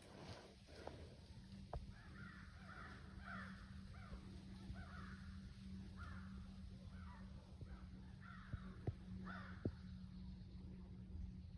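Crows cawing, a series of about ten harsh caws, with a few sharp clicks near the end.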